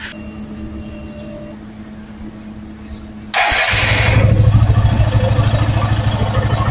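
Suzuki motorcycle engine started on the electric starter about three seconds in: a brief harsh crank, then the engine catches and settles into an even, pulsing idle.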